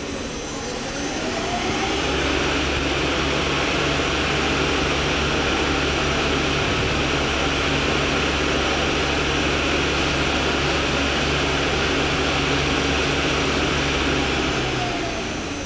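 Mori Seiki DuraTurn 2050 CNC lathe spindle and hydraulic three-jaw chuck spinning up during a spindle-speed test. The pitch rises over the first couple of seconds, then holds a steady high-speed whir and hum, and the spindle winds down about fifteen seconds in.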